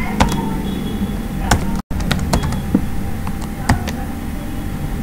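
Computer keyboard keys clicking, a few separate keystrokes spread out, over a steady low background hum. The sound cuts out completely for an instant just before two seconds in.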